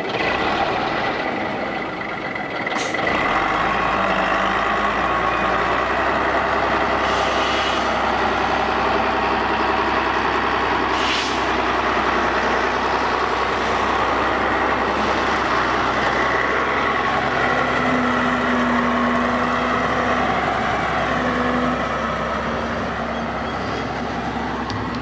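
Stalowa Wola Ł-34 wheel loader's diesel engine running steadily as the machine works a straw stack with its stacking fork, with a steady high whine over the engine. A few short hisses break in, about 3, 7 and 11 seconds in.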